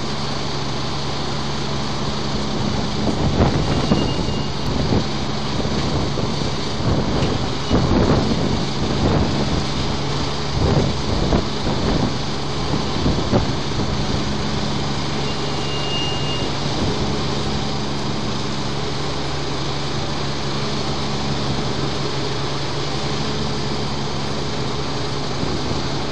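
Diesel engines of heavy-duty rotator wreckers running steadily while their booms and winches lift an overturned tractor-trailer upright, with irregular bursts of noise through the first half.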